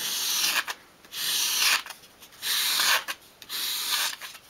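A thin piece of wood swept across sandpaper laid flat on a work surface, four rasping strokes with short pauses between them, rounding off the wood's edge.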